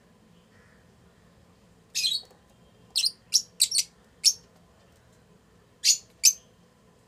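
Fischer's lovebirds giving short, high-pitched chirps: eight calls in three bunches, starting about two seconds in, the last two close together near the end.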